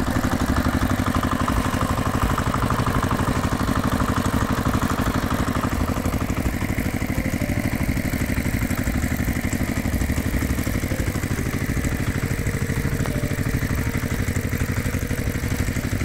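Engine sound effect: an engine running steadily with a rapid, even chug. It starts abruptly and cuts off suddenly at the end.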